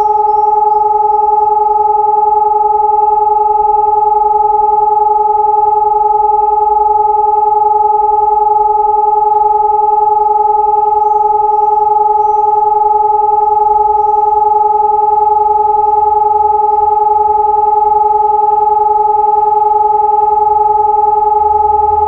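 eRotor 750 electronic siren (SiRcom) sounding a continuous steady tone, the test signal of a siren test. The pitch holds level without any wail or break.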